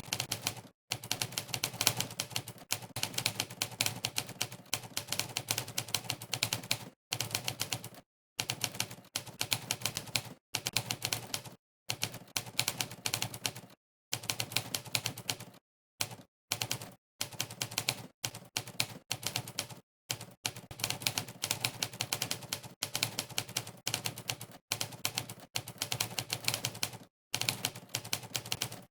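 Fast typing played back as typewriter keystroke sound effects, one sampled typewriter click for each key pressed in a typing test. The clicks come in quick runs, broken every second or few by brief silent pauses.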